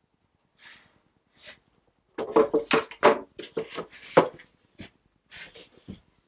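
Wooden duck ramps with cleats knocking and clattering against each other and the workbench as they are handled and set down: a dense run of sharp wooden knocks starting about two seconds in, then a few lighter knocks.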